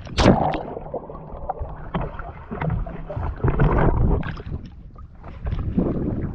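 Water splashing and sloshing around a paddleboard in irregular surges, with wind rumbling on the microphone. A sharp splash comes right at the start.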